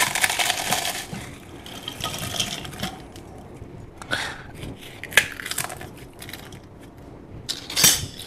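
Potato chips being crushed by hand and dropped into the plastic bowl of a food processor: a dense crackle in the first second, then a few scattered crunches and light clicks.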